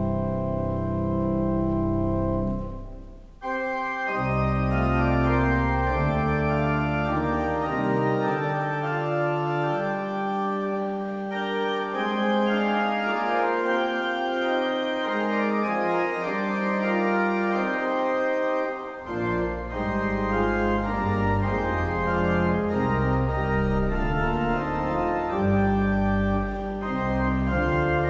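Pipe organ playing the postlude after the benediction: held chords with moving notes above. There is a brief break about three seconds in, and the deep pedal notes drop out for about ten seconds in the middle before coming back.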